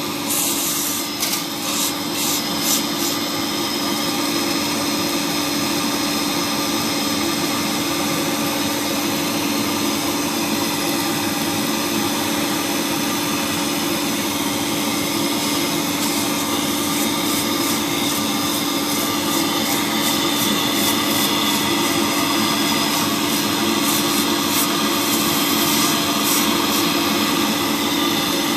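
Polygon pole welding machine running steadily mid-weld: a continuous machine hum over an even hiss, with faint scattered crackles.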